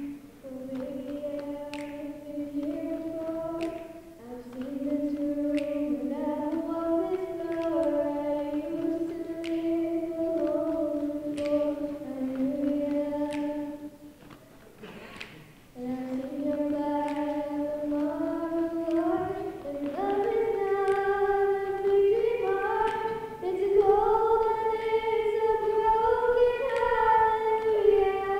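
Children's vocal group singing a cappella in close harmony, holding long chords with a short break about halfway and growing louder toward the end. Sharp clicks mark the beat every couple of seconds.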